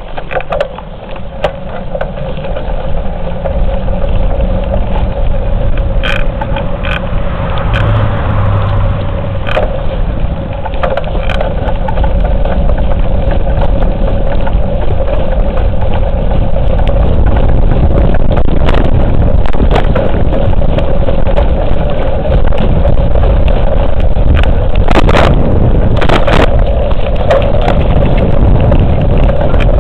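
Wind buffeting the microphone and bicycle tyres rolling on an asphalt path while riding: a loud, steady rush that builds over the first few seconds. A steady hum runs underneath, with scattered knocks and rattles as the bike goes over bumps.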